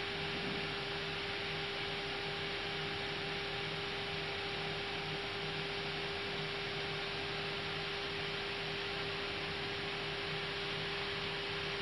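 Steady cockpit background noise of an Airbus A320 holding on the taxiway with its engines running: an even hiss with a constant electrical hum.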